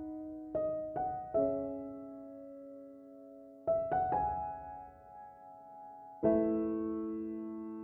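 Soft background piano music: slow groups of struck notes and chords, each left to ring and fade.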